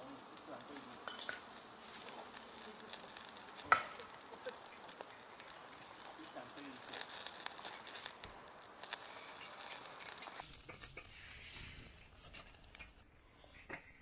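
Marbled beef rib meat sizzling and crackling on a wire grill over a wood fire, a steady hiss full of fine pops, with one sharp click about four seconds in. About ten seconds in the sizzle drops away to a quieter background with a few light clicks.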